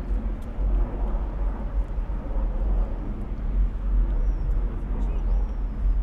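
Outdoor city ambience: a continuous, uneven low rumble, with a few faint high chirps about five seconds in.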